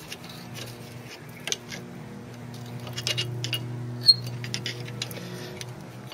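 Scattered metallic clicks and scraping as a worn front brake pad is prised out of its caliper bracket with a screwdriver, with one sharp click about four seconds in. Steady background music plays underneath.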